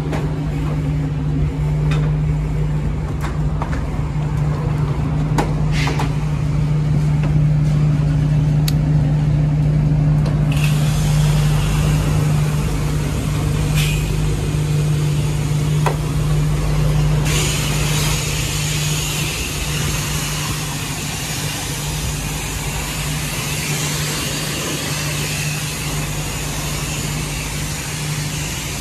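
Steady low machine hum with a few clicks, then about ten seconds in a high-pressure water spray starts hissing, growing stronger a few seconds later: a car wash spray wand washing a truck.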